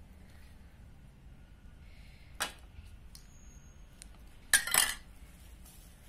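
A spoon clinking against a dish: one sharp clink about two and a half seconds in, then a louder double clink a couple of seconds later.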